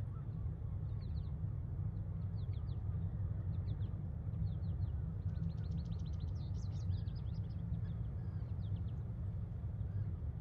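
Birds calling in groups of short, high chirps, with a quick rapid run of chirps about halfway through, over a steady low rumble.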